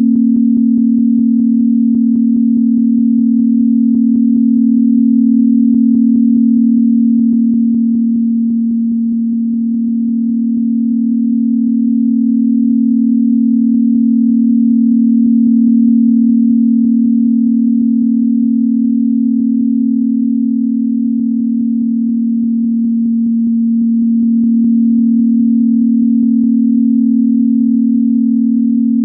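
Electronically generated steady pure tone, low in pitch, held without a break and slowly ebbing and swelling in loudness, over a faint low background haze.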